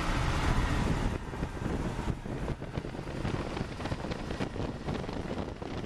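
Cab noise of a woodgas-fuelled pickup truck with a 318 V8 under way: engine and road noise with wind buffeting the microphone. It gets somewhat quieter about a second in.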